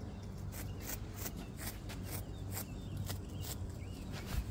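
Quiet outdoor background: a steady low hum under a run of soft, high-pitched ticks, about three or four a second, with a few faint chirps.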